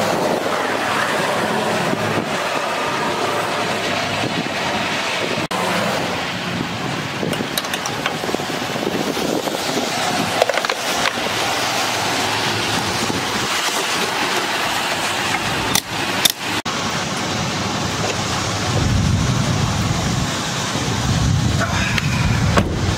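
Steady hiss of traffic driving past on a wet road. Two sharp knocks come about sixteen seconds in, and a deeper low rumble sets in near the end.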